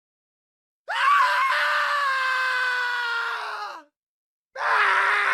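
A man screaming: about a second in, one long scream of some three seconds that rises sharply at the start, holds, then falls off at the end. After a short gap a second, lower and rougher scream begins near the end.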